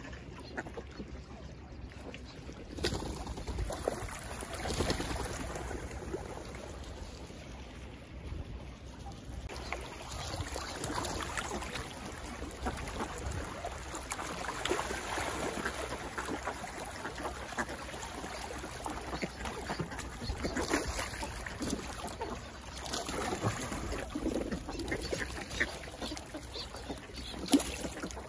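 Mixed flock of ducks (tufted ducks, northern pintails and common pochards) jostling on the water, with irregular splashing and duck calls.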